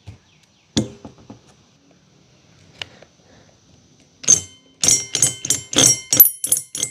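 Hole saw on a cordless drill cutting into the wall of a plastic drum: after a quiet start, from about four seconds in, the saw catches and knocks in a loud run of about three jolts a second, each ringing briefly.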